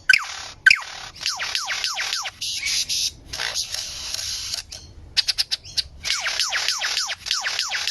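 Lyrebird song: fast runs of descending whistled notes, broken near the middle by a short burst of rapid clicks, then more falling notes.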